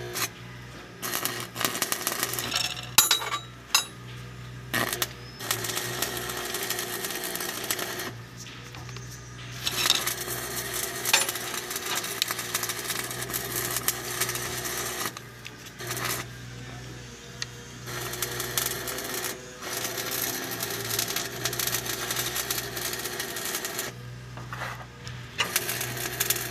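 Metal clinks and scraping as a segmented cutting blade and its flange are handled and fitted onto a grinder's spindle, in irregular bursts. A steady low hum runs underneath.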